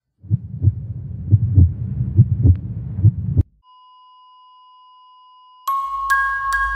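Intro sound effects: a run of deep low thumps, about three a second, that cuts off sharply after about three seconds. Then a steady high electronic beep is held for about two seconds, like a heart-monitor flatline. Near the end, music with bell-like mallet notes starts.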